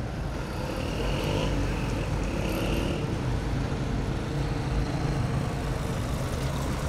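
Street traffic: a car and other vehicles running through an intersection, a steady engine and tyre rumble.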